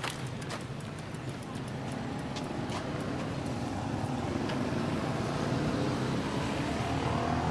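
Motor vehicle running along a road: a steady engine hum with road noise, growing gradually louder.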